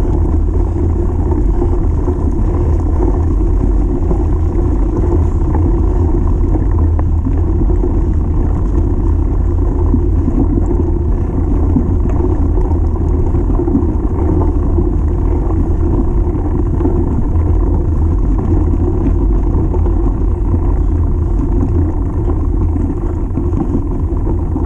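Steady, loud rumble of wind buffeting a rider-worn camera's microphone, mixed with the tyre noise of a mountain bike rolling over a dirt track.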